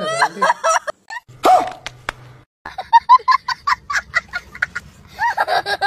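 Laughter: a man's chuckling in the first second, then, after a short break, a boy laughing hysterically in rapid, high-pitched, cackling bursts.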